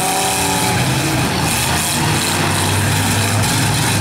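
V8 demolition derby cars' engines running and revving, a low drone that wavers in pitch and grows stronger in the second half.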